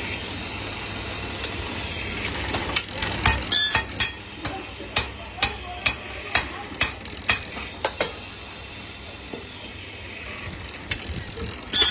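Drill press with a stepped cutter machining a cast aluminium pan handle, its motor running steadily. From a few seconds in, a run of sharp clicks comes about twice a second, then dies away, with a louder clatter just before the end.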